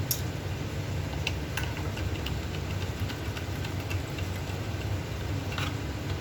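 Scattered light clicks and taps of small tools and parts as a Mavic 3 drone's gimbal is unscrewed, over a steady low hum.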